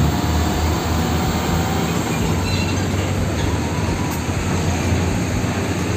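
Heavy diesel tanker truck running: a steady low engine sound under a dense, even noise.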